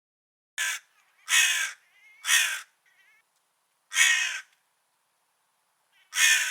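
Crow cawing: five caws, the first one short, then a pause of nearly two seconds before the last.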